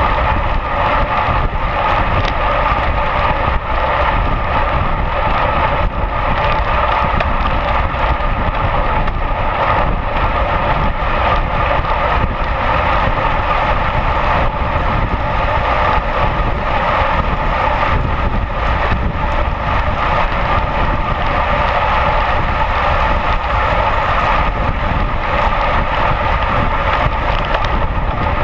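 Steady rush of wind over a cyclist's action-camera microphone, mixed with tyre and road noise from road bikes riding at speed.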